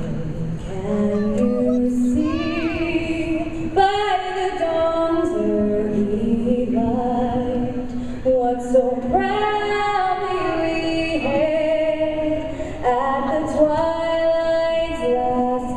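A female singer singing a national anthem, one voice moving through long held notes.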